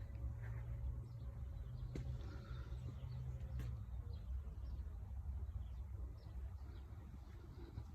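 Quiet outdoor background: a steady low rumble with faint, scattered bird chirps.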